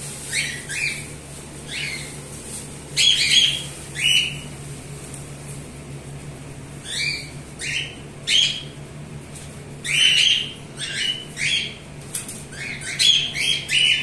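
A group of cockatiels calling: short shrill squawks, many sliding downward in pitch, coming in clusters with short pauses between them. A steady low hum runs underneath.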